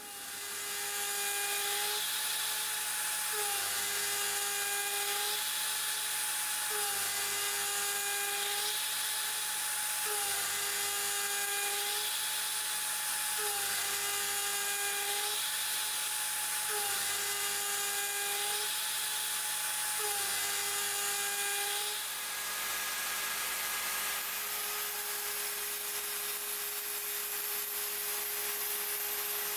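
Router spindle of a Mostly Printed CNC milling aluminum with an end mill, a steady high whine over a hiss. Its pitch steps between two tones and back in a cycle that repeats about every three and a half seconds as the cutter loads and unloads on each adaptive pass. After about 22 seconds the cycle stops and the tone holds steady.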